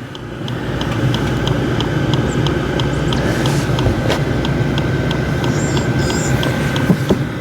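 Diesel air heater running after its starting phase: the blower fan running with a steady hum and rush of air, and the fuel dosing pump ticking about three times a second.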